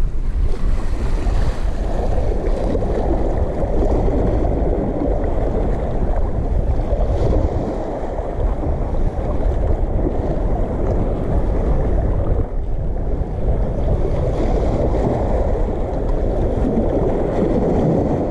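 Steady rushing noise of wind and water, heaviest in the low end, with wind buffeting the microphone.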